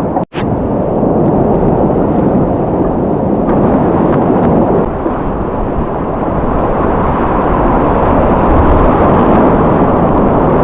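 Loud, steady rushing of whitewater on a river running past a kayak, cut by a split-second dropout just after the start.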